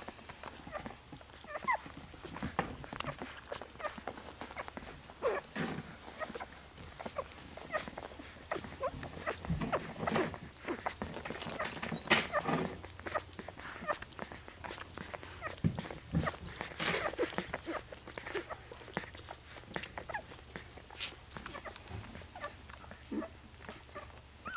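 Two-week-old golden retriever puppies nursing: a continual, irregular patter of small wet suckling and smacking clicks, with an occasional short squeak or whimper from a puppy.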